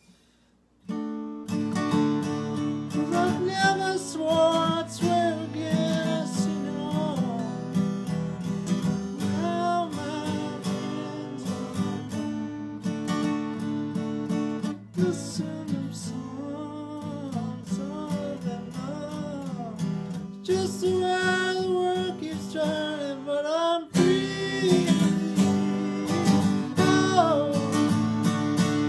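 Acoustic guitar strummed in a steady rhythm, starting about a second in, with a man singing over it.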